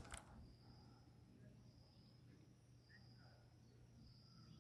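Near silence with a faint, high insect trill that repeats about once a second, each trill lasting about half a second. A soft click comes right at the start.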